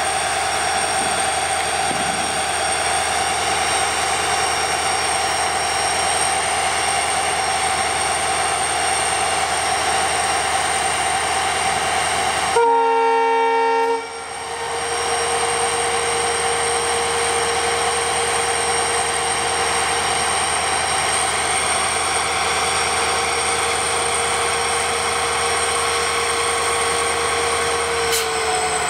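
Diesel locomotive running steadily with high whining tones over its engine noise. About 13 seconds in, a locomotive horn sounds one loud blast of about a second and a half.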